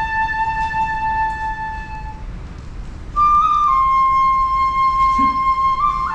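Japanese bamboo flute (shinobue) playing a slow melody of long held notes in Awa Odori festival music. One note fades out about two seconds in; after a short gap a louder note starts and steps up in pitch near the end.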